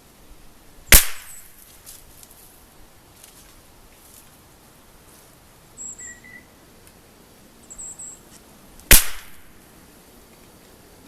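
Two rifle shots about eight seconds apart from a Lithgow LA101 bolt-action .22 rimfire firing RWS Rifle Match .22 LR. Each is a sharp crack with a brief tail.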